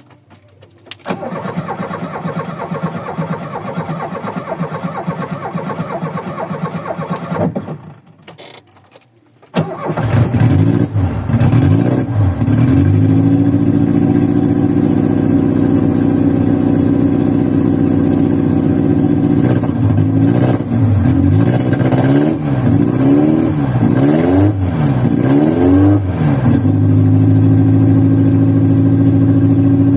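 A carbureted VW Voyage cranks for about six seconds without catching, then fires on a second crank and runs, settling into a rough idle after sitting unused for days. Later the revs rise and fall several times as the throttle is blipped, then the engine returns to a steady idle.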